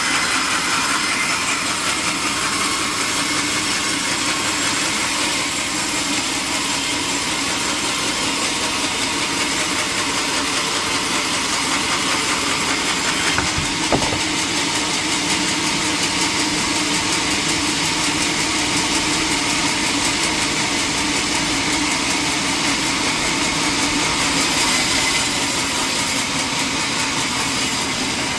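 Sawmill machinery running steadily with an engine-like drone, with one sharp knock about halfway through.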